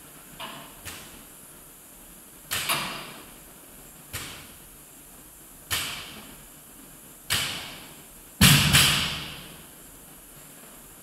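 A loaded barbell with bumper plates thudding onto a rubber gym floor at each deadlift rep, about every one and a half seconds, each hit with a short echo. Near the end come two loud, heavy bangs in quick succession as the bar is let down to the floor.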